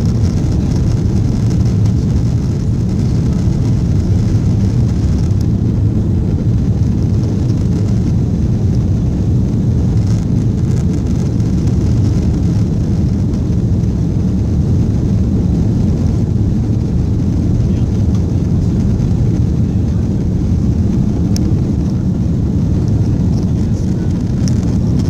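Steady, loud low rumble inside the cabin of an Airbus A330 as it rolls along the runway, engine and wheel noise heard through the fuselage.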